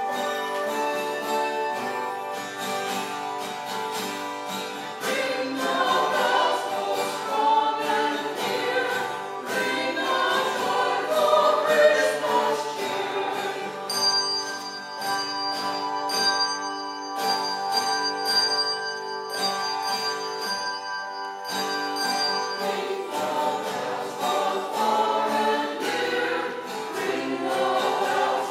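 Choral music: a choir singing with instrumental accompaniment.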